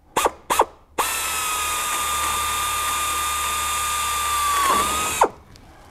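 Sioux Tools pneumatic air drill drilling through an aluminium wing rib and flaperon bracket. It gives two quick short bursts, then a steady high whine with hiss for about four seconds. The whine dips briefly in pitch just before it stops.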